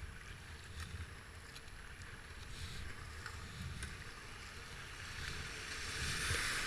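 Rushing river rapids and kayak paddle splashes, with wind rumbling on the microphone. The water grows louder near the end as the kayak runs into standing waves.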